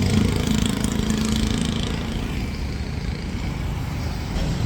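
A motor vehicle's engine running close by over low traffic rumble. Its hum fades over the first two seconds or so.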